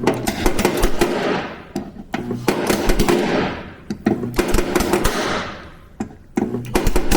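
Tool work on a truck cab's sheet metal during dent pulling. Bursts of rapid clattering impacts start about every two seconds, five times in all, each fading out over about a second and a half.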